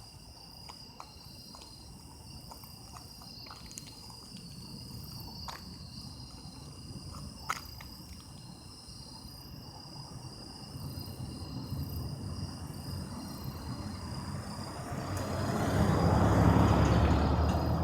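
Autumn crickets trilling steadily in several high tones, with a few faint ticks. A passing vehicle's low rumble builds from about halfway through and is loudest near the end, over the insects.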